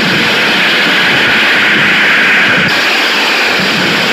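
Loud, steady rushing noise from the stage loudspeakers, a sound effect for the fight between Durga and the demon Mahishasura; it cuts in abruptly just as the music stops.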